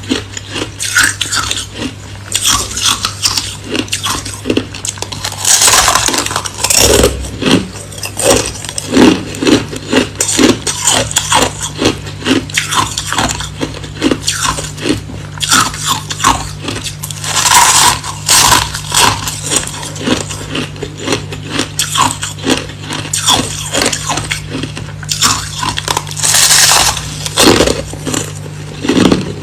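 Hard, clear crushed ice being bitten and chewed close up, a rapid run of sharp crunches, with three longer clattering spells of ice pieces against each other or a container. A steady low hum runs underneath.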